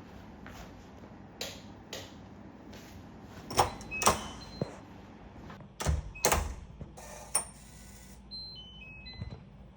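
Scattered clicks, knocks and clinks of kitchenware being handled, loudest about four and six seconds in, with a short run of high electronic beeps stepping down in pitch near the end.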